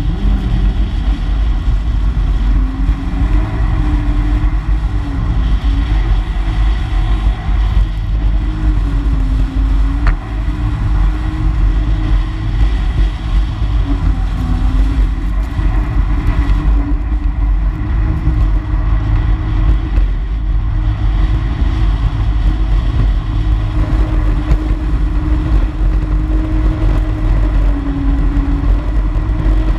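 Personal watercraft engine running at speed, its pitch holding steady but dipping briefly a few times as the throttle eases, over heavy wind rumble on the microphone and the hiss of water rushing past the hull.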